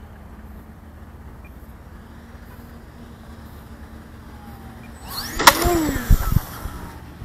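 Electric motor and propeller of an E-flite Sukhoi RC 3D plane humming faintly on approach, then sweeping close past with a falling pitch about five seconds in. A sharp impact follows, then a couple of thumps: the plane landing hard.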